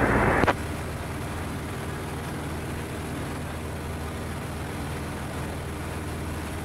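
Light aircraft's engine and propeller running steadily, heard from inside the cockpit as an even drone with a low hum of engine tones. A radio call cuts off with a click about half a second in.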